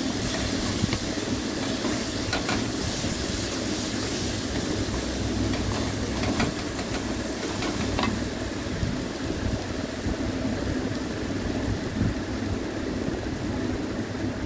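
Onion-tomato spice masala sizzling steadily in hot mustard oil in a metal kadai as it is fried down. Now and then a wooden spatula stirs and scrapes it, giving a few light ticks.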